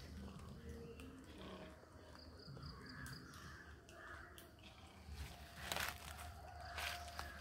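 Quiet forest ambience with faint animal calls, and two sharp rustles of leaves and branches about six and seven seconds in as monkeys move through the trees.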